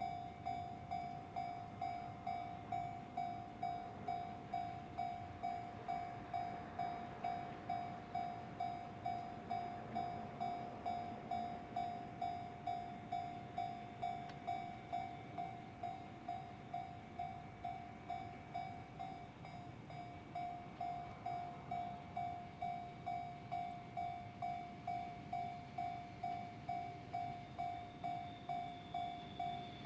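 Railway level-crossing warning bell ringing over and over, about one and a half dings a second, over a faint background rumble. A higher steady tone joins in near the end.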